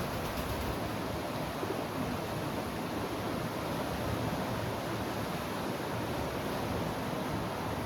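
Ocean surf: a steady, even wash of breaking waves.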